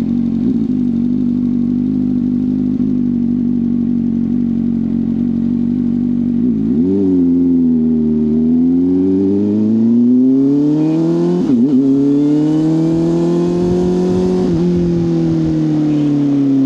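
CFMoto 500SR Voom's parallel-twin engine through an SC Project carbon slip-on exhaust, running on the move. It holds a steady note for about seven seconds, blips briefly, then climbs and falls in pitch with two short stutters along the way.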